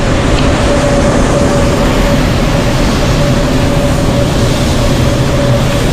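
Huge ventilation fans on a container ship's deck running with a loud, steady rush and a constant hum.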